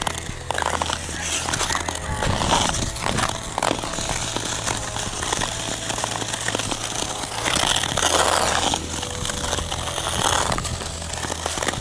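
Ice skate blades scraping and gliding over rough, chewed-up outdoor ice, with several louder rasping scrapes along the way.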